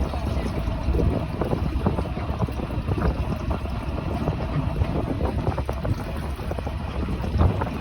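Wind buffeting the microphone: a steady low rumble with irregular gusts and crackling.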